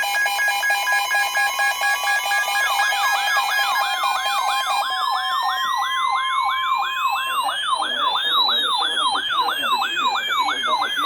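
Layered electronic alert tones and sirens. Pulsed beeping tones at several pitches give way, about three seconds in, to a fast yelp-style siren sweeping about three times a second. Under it a slower wail rises to a peak and falls away.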